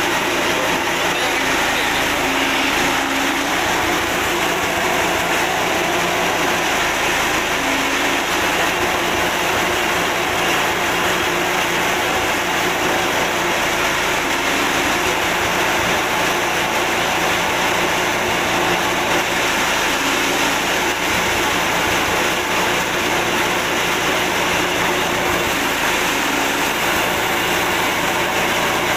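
Forage chopper with a roller feed and six blades, driven by a 6.5 hp petrol engine, running steadily while green corn stalks are fed in and chopped. The engine and cutting blades make a steady, loud drone.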